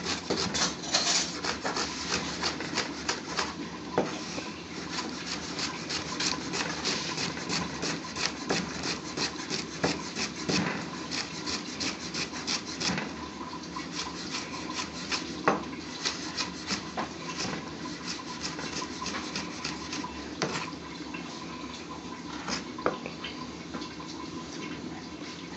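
Chef's knife slicing an onion on a plastic cutting board: a fast, steady run of light chopping strokes that thins out and stops near the end.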